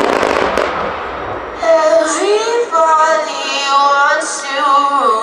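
The noise of the fireworks display dies down over the first second and a half. Then a high solo voice sings a slow melody of held notes, part of the display's music soundtrack.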